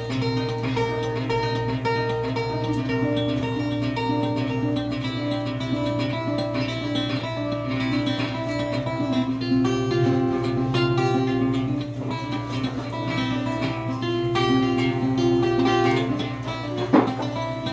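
Hollow-body guitar playing an instrumental passage of quickly picked, repeating notes over a steady low note. Near the end there is one sharp knock.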